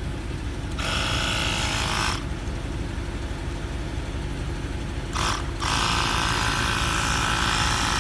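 Battery-powered portable tyre inflator's compressor running, starting about a second in and cutting out a second later, then starting again after a few seconds and running steadily as it pumps up a tyre. A steady low rumble, like an idling vehicle engine, runs underneath throughout.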